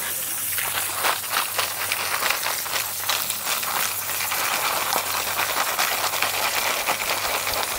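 Water jet from a hose nozzle spraying a heap of sea snails and clams to wash them, with a continuous hiss and a dense, steady clatter of shells knocking together.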